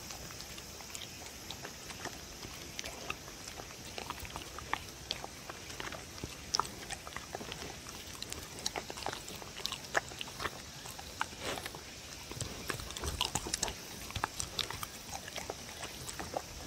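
A dog licking up and chewing soft cubes of tofu, boiled potato and egg yolk: wet, irregular mouth smacks and clicks, coming thickest about twelve to fifteen seconds in.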